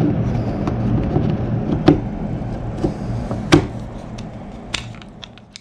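Plastic axle, differential-housing and driveshaft parts of an RC truck clicking and knocking together as they are handled and fitted, a few sharp clicks standing out over a steady low hum. The sound fades away near the end.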